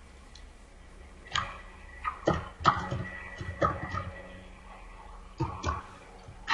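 Computer keyboard keys being typed: a run of irregular clicks, a pause, then a couple more keystrokes.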